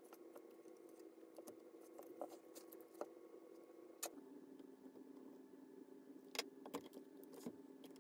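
Faint, scattered clicks and taps as the partly disassembled Nikon D90 camera body and its small parts are handled with gloved hands, over a faint steady hum.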